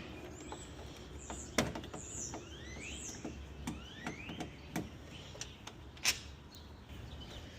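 Scattered light clicks and taps of hand tools and loosened parts under a car's hood during radiator removal. Near the middle, a few short rising chirps.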